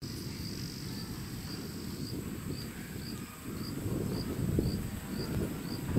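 An insect chirping at an even pace, a short high chirp about twice a second, over a low steady rumble.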